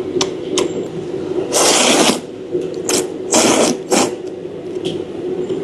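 Noodles slurped loudly twice, in two half-second bursts, with small clicks between, over a steady background hum.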